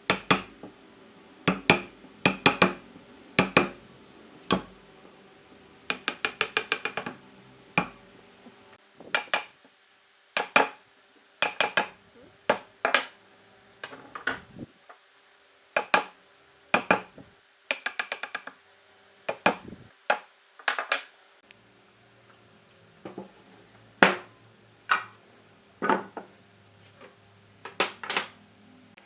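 Sharp knocks and taps of a tool on wood, mostly single strikes about once a second, with two quick runs of rapid taps: one around six seconds in and one past the middle. A faint steady hum lies underneath during the first two-thirds.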